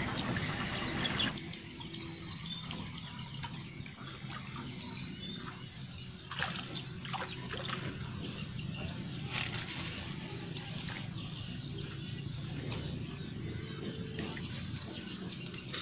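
Faint water sloshing and splashing with scattered small clicks, from a hooked tilapia being played and drawn in to the bank on rod and line.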